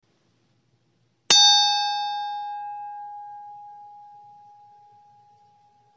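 A single bright chime-like ding, struck once about a second in, with its high overtones dying away first and one steady tone ringing on and slowly fading.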